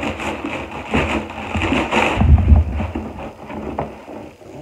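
Packaging being opened by hand: irregular crinkling and rustling, with a low thump a little over two seconds in.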